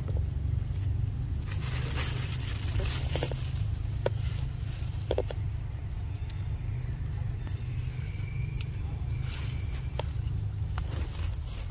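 Forest ambience: insects keep up a steady high-pitched drone over a low rumble, with short bursts of rustling about two seconds in and again near the end, and a few faint clicks.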